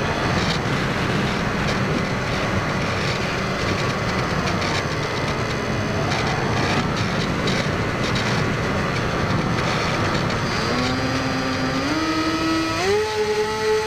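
Onboard sound of a Firebird Stratos RC plane gliding with the throttle back, mostly wind rushing over the airframe and camera. About ten seconds in, the electric motor's whine comes back and steps up in pitch as the throttle is opened, then holds steady.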